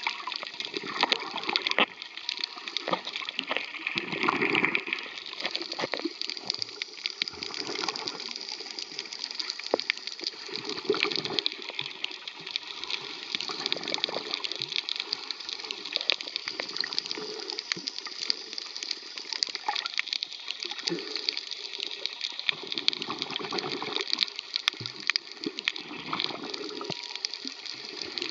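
Water noise heard through a submerged camera: a continuous wash with many small crackles and clicks, swelling every few seconds as the water and the camera move.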